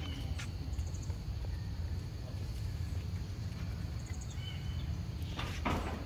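Outdoor ambience: a steady insect buzz with a few faint bird-like chirps over a low rumble, and a short rustle of dry leaves about five and a half seconds in.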